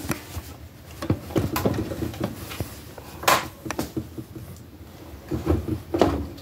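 Plastic action figures being handled and repositioned on a shelf: a string of irregular clicks and knocks, the sharpest about three seconds in and again near the end.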